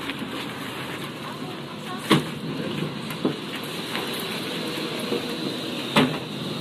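A few sharp knocks and clatters from cases of bottled water and donated goods being handled inside a box truck, over steady background noise. The two loudest knocks come about two seconds in and near the end.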